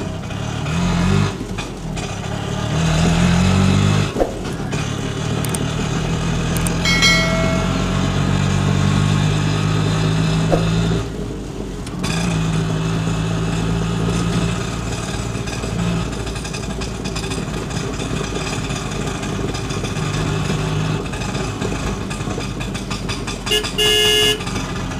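Small motor-vehicle engine sound that revs up in rising glides in the first few seconds, then runs steadily, with a short horn honk near the end. The toy is pulled on a string, so the engine and horn are added sound effects, not made by the toy.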